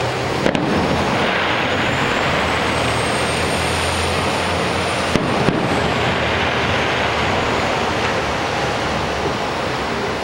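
Fireworks display: a steady wash of noise with sharp bangs about half a second in and twice in quick succession around five seconds, and a thin high whistle that slowly rises and holds through the middle before fading.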